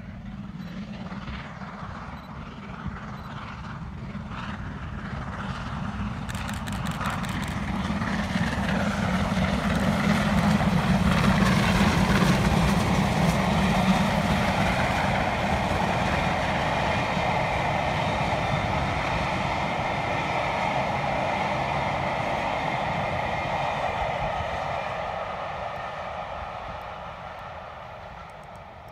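Preserved LMS Jubilee three-cylinder steam locomotive 45562 'Alberta' working a train of coaches past, its exhaust beats and the rolling coaches growing loud as it approaches, peaking about twelve seconds in, then fading as it draws away.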